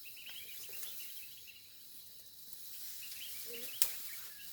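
Small birds chirping in quick twitters, over a thin steady high tone, with a single sharp click a little before the end.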